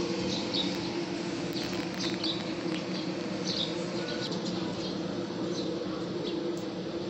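Holytek 20-inch automatic planer running with a steady machine hum, overlaid by short, scattered high-pitched squeaks.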